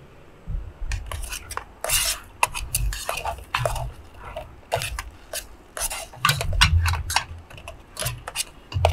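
A cooking utensil scraping and clinking against small metal camping frying pans as food is divided out, in a string of quick scrapes and knocks with some dull thuds.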